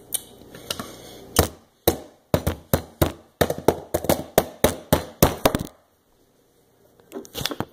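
A rapid run of sharp taps and knocks, about four or five a second, that stops suddenly for about a second, then a few more near the end.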